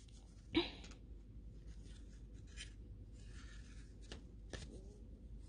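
Faint rustling and handling of paper drawings, with a brief louder sound about half a second in and two small clicks near the end.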